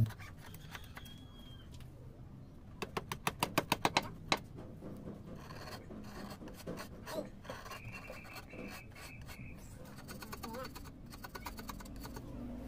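Steel chisel pushed by hand, scraping and paring soft carving stone. A quick run of about ten sharp scrapes comes about three seconds in, then quieter, scattered scratching strokes follow.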